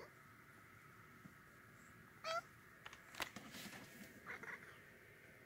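Domestic cat giving one short meow about two seconds in, followed by a few light clicks and rustles as it moves about close by.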